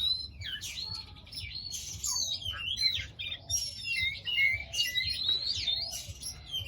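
Several caged aviary birds singing together: a dense run of short overlapping chirps and whistles, many sliding up or down in pitch.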